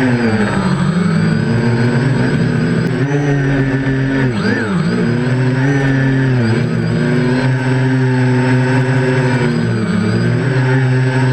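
Quadcopter's brushless motors and propellers whining, heard close up, the pitch falling and rising repeatedly with the throttle. There is a sharp drop and quick climb about four and a half seconds in.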